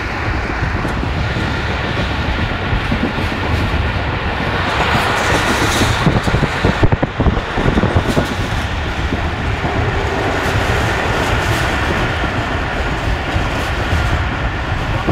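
Tezgam Express passenger train running, heard from inside a carriage: a steady rumble of wheels on the rails, louder for a couple of seconds about halfway through.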